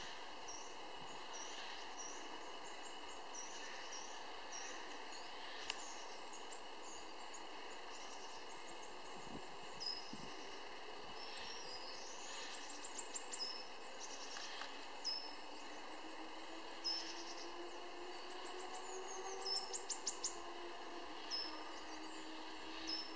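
Small birds calling: short high chirps repeated about twice a second, with a couple of quick high trills around the middle and near the end, over a steady background hiss. A faint low drone rises slowly through the second half.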